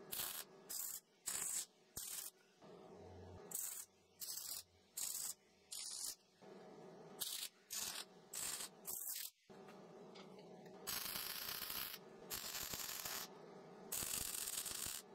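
MIG welder arc crackling on steel square tube: a quick series of about a dozen short tack-weld bursts, then two longer welds of about two seconds and one second near the end.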